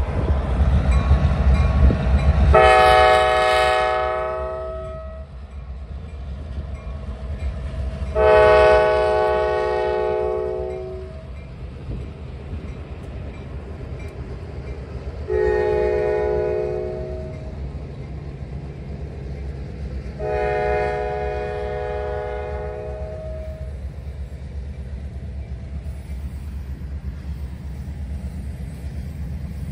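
Kansas City Southern F-unit diesel locomotives passing close by, sounding their multi-note air horn in four blasts, the third shortest: the long-long-short-long signal for a grade crossing. Under the horn is a steady low rumble of engines and rolling cars, loudest at the start as the locomotives go by.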